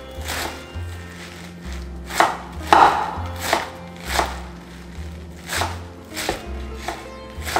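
Kitchen knife chopping spinach finely on a wooden cutting board, in steady strokes about one and a half a second, one louder near the middle. Background music with a stepping bass line plays underneath.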